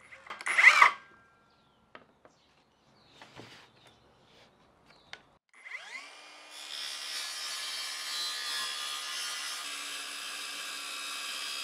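A short clatter as the saw is set onto the track, then a Kress 20 V cordless circular saw spins up with a rising whine about six seconds in and runs steadily as it is fed along the Milescraft track, trimming the track's guide strip to the blade line.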